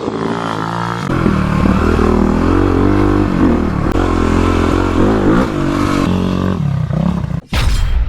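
Dirt bike's single-cylinder engine revving, its pitch rising and falling again and again. Near the end it cuts out abruptly, followed by a short rushing burst.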